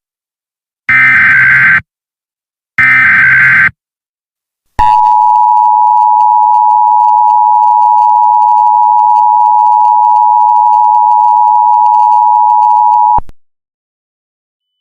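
Emergency Alert System tones. First come two loud bursts of the SAME digital header, each a harsh buzzing data warble about a second long. Then the steady two-tone EAS attention signal sounds for about eight seconds and cuts off suddenly.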